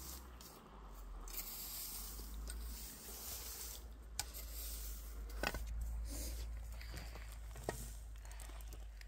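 Dry straw rustling and crunching as it is chopped and scraped with a wooden-handled hand tool beside a wicker basket, with three sharp clicks in the second half.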